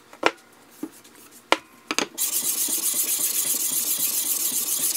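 A few sharp clacks of hard things on a glass plate, then from about two seconds in a steady, fast back-and-forth rubbing as a cloth wipes iron filings and grit off sandpaper laid on the glass.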